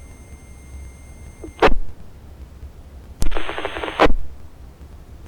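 Baofeng UV-5R scanner radio hissing and humming between transmissions. Its squelch clicks open about two seconds in, then again a second and a half later for a short burst of garbled transmission under a second long, cut off with another click.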